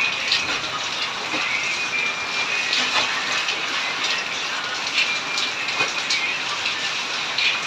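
Steady hiss of rain and splashing water, with water pouring and sloshing back into plastic basins as laundry is hand-washed and wrung out.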